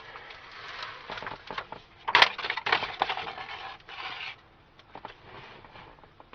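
Crinkling and rubbing of a sheet of sound-deadening insulation being handled and pressed into place, with a few sharp clicks; loudest a little past two seconds in, and it dies down about four seconds in.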